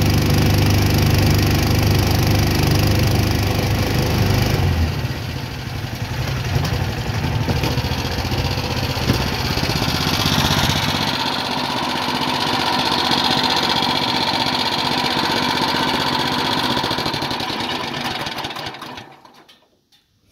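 Single-cylinder 420cc engine of a Mudskipper long-tail mud motor running under way, its speed shifting a couple of times. It dies away about a second before the end.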